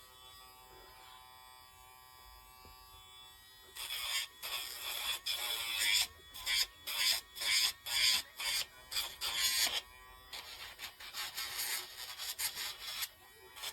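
Casfuy electric dog nail grinder running with a steady hum, then, from about four seconds in, touched to a dog's nails again and again, giving a string of short rasping grinding bursts about two a second that grow weaker near the end.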